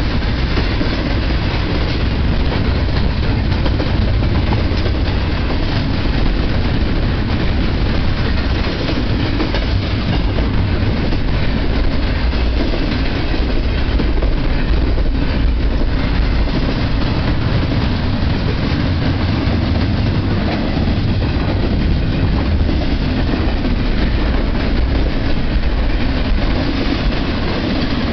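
Double-stack intermodal train's well cars rolling past close by: a steady, loud rumble of steel wheels on the rails, heaviest in the low end.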